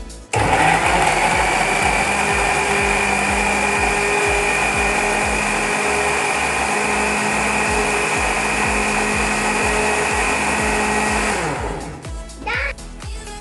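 Philips 600 W countertop blender switched on, running steadily as it purees fruit into a smoothie, then switched off about eleven seconds in, its motor winding down with falling pitch. Background music with a steady beat plays underneath.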